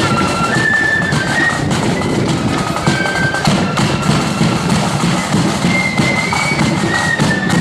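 Marching flute band playing a tune together in high, held flute notes, with drums beating out the march.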